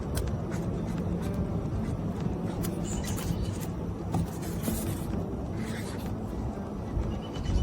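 Marker pen drawing on construction paper wrapped around a cardboard box: scratchy strokes at intervals, with light handling clicks.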